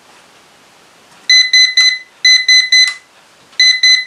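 Short runs of quick, high electronic beeps, about four a second. After a quiet first second come three beeps, then three more, then a run of four or five near the end, as the drone's camera tilt is adjusted.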